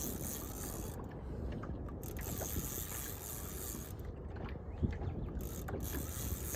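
Fishing reel ticking and whirring as line is worked on a hooked fish, over a steady low wind rumble.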